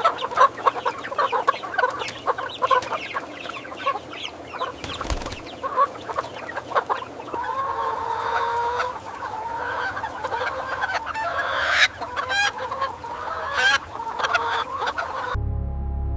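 A flock of broiler chickens clucking and calling together, many overlapping short calls with a few longer sliding ones. About a second before the end it cuts to background music.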